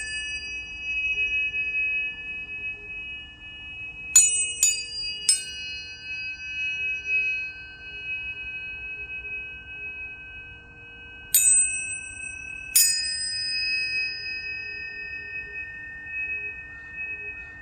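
Several tuning forks struck one after another. Each strike is a sharp tap followed by a long, pure, high ringing tone, and the tones overlap and fade slowly. Three quick strikes come about four seconds in, and two more come after the middle.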